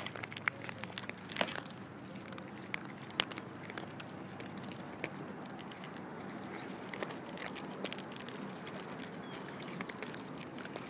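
Several cats crunching and chewing dry food close up: a steady scatter of irregular crisp cracks and clicks, a few sharper and louder than the rest.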